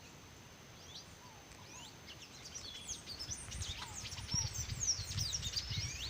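Several small birds chirping and twittering in quick, overlapping short calls, getting busier about halfway through. A low rumbling noise rises underneath in the second half.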